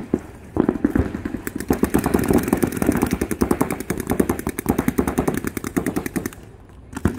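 Paintball markers firing rapid streams of shots, a fast continuous popping that starts about half a second in and stops shortly before the end, with a brief burst again at the very end.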